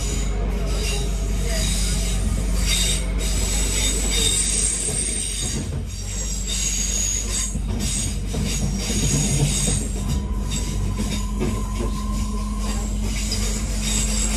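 Class 323 electric multiple unit heard from inside the passenger saloon while under way: a steady running rumble with high-pitched whining tones that swell and fade above it, and a thinner steady tone for a few seconds past the middle.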